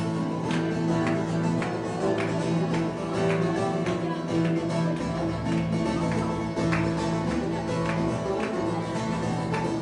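A bağlama (long-necked Turkish saz) and an acoustic guitar playing a folk tune together, with regular rhythmic accents.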